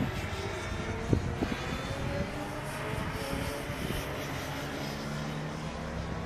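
A car engine running at a fairly steady pitch, with a couple of short sharp knocks about a second in.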